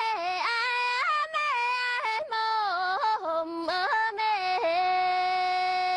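A young Wa woman singing a Wa folk love song unaccompanied in a high voice, with sliding, ornamented notes and short breaths between phrases, settling into a long held note near the end.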